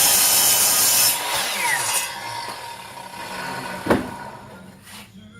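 Power saw cutting wood, switched off about a second in, its motor winding down with a falling whine as it fades. A single sharp knock near four seconds.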